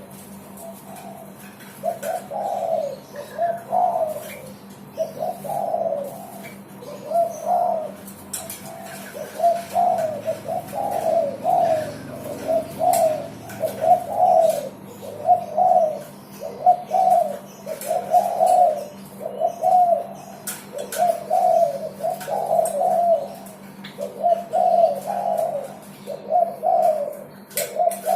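Derkuku dove cooing in an unbroken run of repeated phrases, about one every second and a half, over a faint steady low hum.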